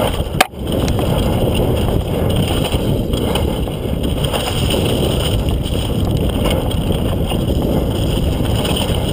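Wind buffeting the action-camera microphone over the rumble and rattle of a mountain bike riding fast down a rough dirt trail, with one sharp knock about half a second in.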